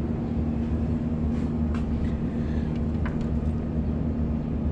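Diesel truck engine idling steadily, a constant low rumble with a steady hum, with a few faint clicks.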